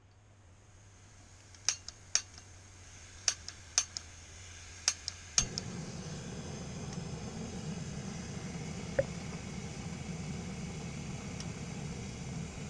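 A few sharp metallic clicks and clinks as a backpacking gas canister stove is handled, then about five seconds in its burner catches and a steady gas hiss runs on.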